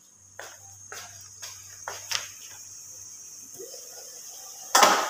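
Cookware being handled on a gas stove: a few light clicks and knocks, then one loud, short burst near the end, over a faint, steady high hiss.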